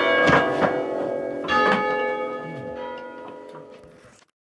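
Ring of six church bells, mostly Rudhall-cast, sounding their last strokes in rounds as they are stood: a few strikes in the first second and again about a second and a half in. After that the bells hum away, fading, until the sound cuts off near the end.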